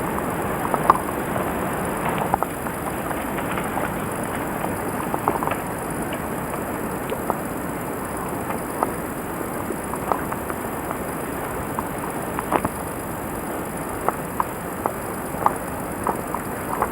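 Forest ambience through a VHS-C camcorder's built-in microphone: a steady hiss with many light, irregular clicks and crackles.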